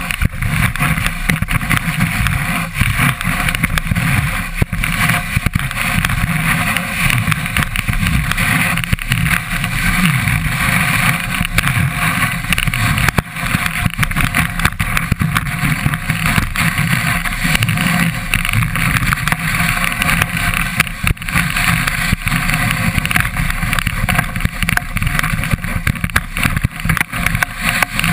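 Skis running fast over groomed snow, heard through a camera mounted on the ski itself: a loud, steady rough rumble and hiss of the ski on the snow, with frequent small knocks from the surface.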